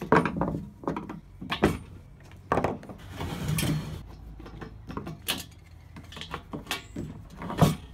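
Screwdriver working on the handle screws of an upside-down Weber One Touch Premium kettle grill bowl: scattered clicks and knocks of the tool and handle parts on the enamelled steel, with a short scraping stretch about three seconds in.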